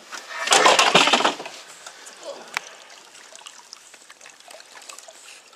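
Water splashing and sloshing beside a boat, loudest about half a second in, then quieter trickling and dripping with small knocks and a sharp tick.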